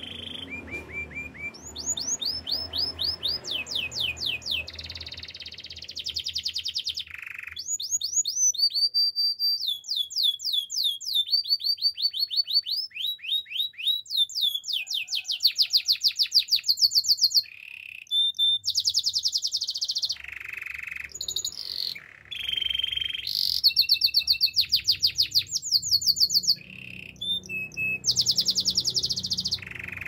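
Canary singing a long song of rapid trills: each phrase is a fast run of one repeated note, and the bird switches to a new note at a different pitch and speed every second or two, with brief pauses between some phrases.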